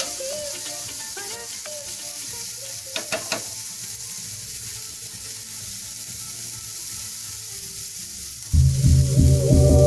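Carrot strips sizzling in hot oil in a frying pan, with a few clicks of the spatula against the pan about three seconds in. Loud music comes in suddenly near the end.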